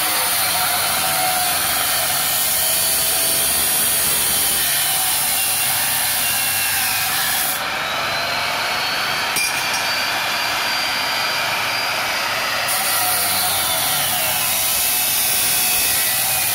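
Angle grinder mounted in a homemade chop-saw stand, its cut-off disc running steadily through steel profile tube with a grinding whine while short braces are cut off.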